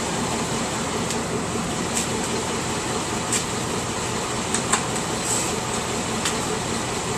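GM LS2 6.0-litre V8 idling hot and steady, with light lifter noise and a few sharp clicks scattered through it.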